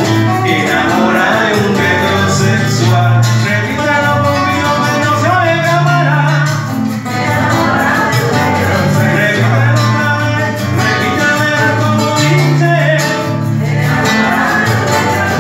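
Live acoustic song: two acoustic guitars playing together while a man sings into a microphone.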